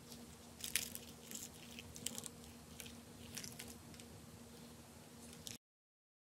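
Faint crackling and crunching of a baked byrek's crisp, flaky pastry layers being torn apart by hand, as a scattered string of small crackles. The sound cuts off abruptly near the end.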